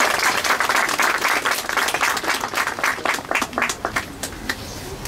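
Small crowd applauding, dense at first and thinning to a few scattered claps near the end.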